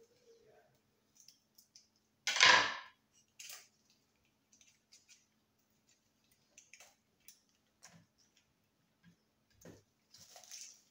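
Kitchen knife slicing an onion into julienne strips on a cutting board: scattered light cuts and taps, with one louder clatter about two seconds in.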